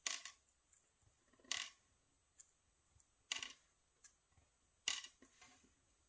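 Small lock-cylinder pins being pushed out of the plug with a pick and dropping into a sorting tray: four sharp metallic clicks about a second and a half apart, with fainter ticks between.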